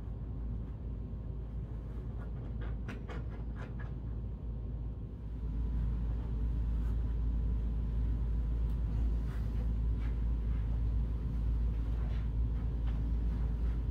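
Steady low rumble that grows louder about five and a half seconds in, with a short run of scratchy rustles and clicks of cloth being handled early on.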